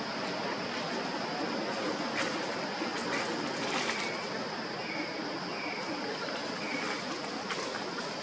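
Steady outdoor ambience: an even hiss of background noise with a constant high-pitched whine, a few faint short high chirps and a few faint clicks.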